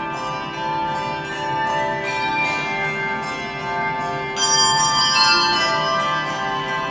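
Handbell choir playing: many handbells ringing in overlapping, sustained chords, with a louder, brighter chord struck about four and a half seconds in.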